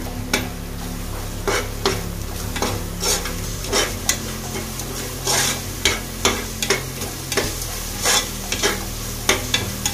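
A metal spatula scraping and stirring onion-tomato masala in a metal pressure cooker, about two strokes a second, over the sizzle of the masala frying in oil.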